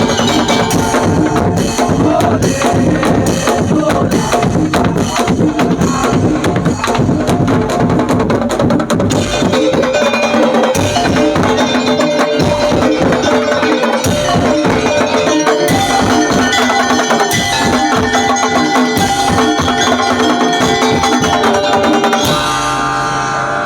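Madurese daul (tong-tong) percussion ensemble playing: fast, dense beating on wooden slit drums and drums over a melody. Near the end the percussion drops out, leaving held tones.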